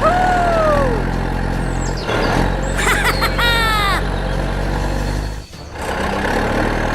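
Steady low engine-like drone of a toy construction vehicle. Two short falling whistle-like calls sit over it, one in the first second and a louder one around three seconds in. The sound cuts out briefly about five and a half seconds in.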